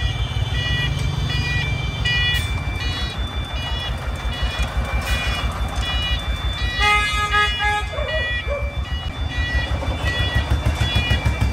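A công nông, a Vietnamese homemade farm truck loaded with soil, drives past close by, its diesel engine chugging with a fast, even thumping. A short horn toot sounds about seven seconds in, and a high, beeping tune runs over the engine.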